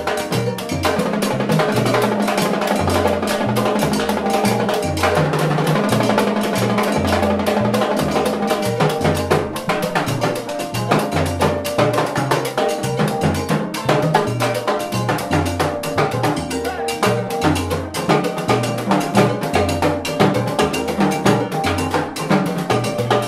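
Salsa timbal solo: timbales struck with sticks, with cowbell and cymbal hits, over a salsa band keeping a steady groove with a repeating low bass line.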